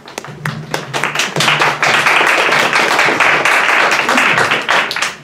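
Audience applauding: a few scattered claps at first, swelling to full applause about a second in, then dying away near the end.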